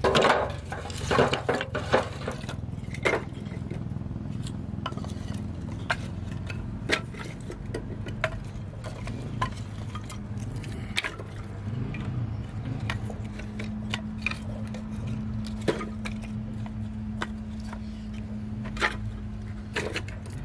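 Cooking pots and utensils knocking and clinking now and then, with a busier run of knocks in the first couple of seconds, over a low steady hum.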